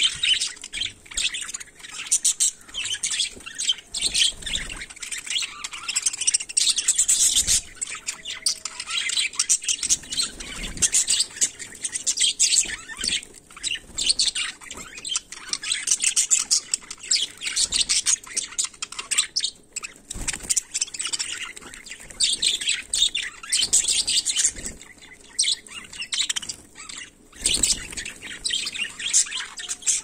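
A flock of budgerigars chattering: a continuous, busy warble of rapid overlapping chirps and tweets from many birds at once.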